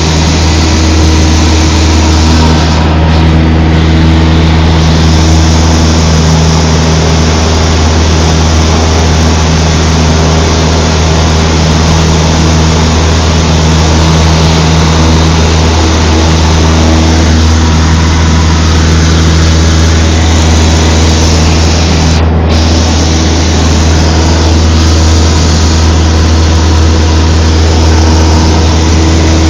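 Cessna 152's four-cylinder Lycoming engine and propeller running at a steady drone.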